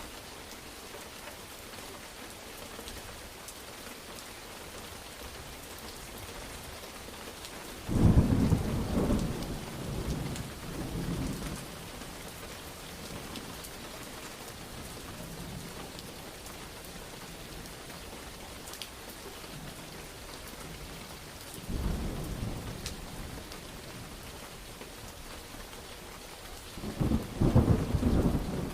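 Steady rain falling, with rolls of thunder breaking in three times: a loud clap about a third of the way in that rumbles on for several seconds, a smaller rumble later, and another loud roll near the end.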